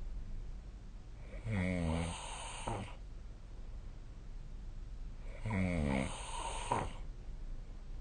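A sleeping person snoring: two snores about four seconds apart, each lasting a little over a second.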